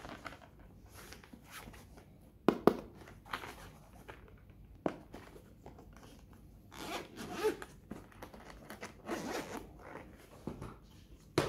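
Zipper of a hard-shell carrying case pulled in short rasping runs, between a few sharp knocks and taps from hands handling the case.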